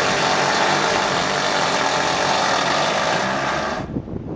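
Winch running steadily under load, cutting off abruptly near the end.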